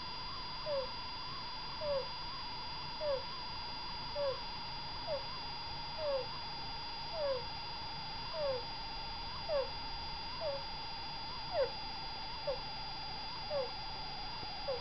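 Sleeping degu making a short, falling squeaky 'kuu' sound with each breath, about once a second. This is not ordinary snoring: it is an abnormal breathing noise, the sign of a health problem that needs a vet. A steady faint whine runs underneath.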